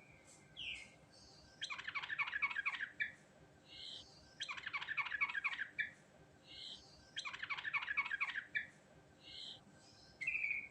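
Yellow-vented bulbul (trucuk) singing: three quick phrases of about eight rapid falling notes each, with short single notes between the phrases.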